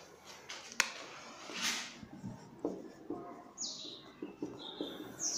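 Red marker writing on a whiteboard: a sharp click a little under a second in, then short scratchy strokes and several brief high squeaks that drop in pitch as the letters are drawn.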